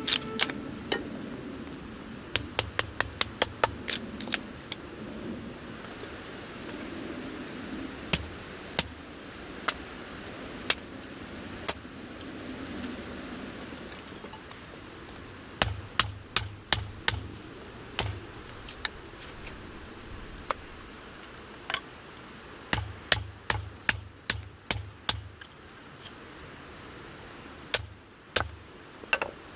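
Knife chopping on a cutting board in quick runs of several strokes a second, each a sharp click with a low knock, with pauses and single cuts between the runs.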